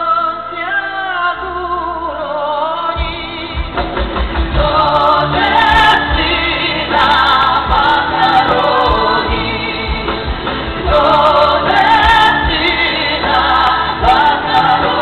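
A song performed live: sung vocals over a band, with bass and drums coming in about three seconds in.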